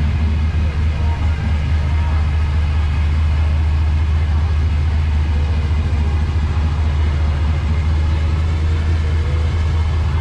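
A car engine idling steadily, loud and low-pitched, with no revving.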